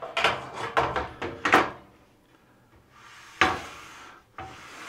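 Aluminium and plastic rip fence of a Ridgid R4512 table saw being slid along its rails and handled. A run of clacks and scrapes comes in the first second and a half, then a sharp knock about three and a half seconds in, followed by a second of sliding rasp as the fence rides over a high spot on the rail.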